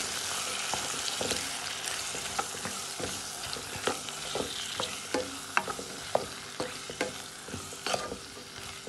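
Diced tomatoes, onion and chili frying in oil in a nonstick pan, with a steady sizzle that eases off gradually, while a spatula stirs them with irregular scraping taps against the pan.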